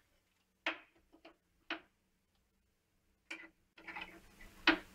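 A metal spoon tapping against a metal kadhai as thick tamarind pulp is knocked off it into water: about half a dozen short, separate clicks at uneven intervals.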